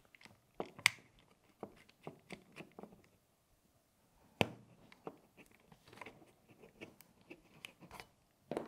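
Small screwdriver tightening the fire selector screw on an SSR63 airsoft rifle's lower: scattered light clicks and scrapes of the tool and parts, with a sharper click about four and a half seconds in.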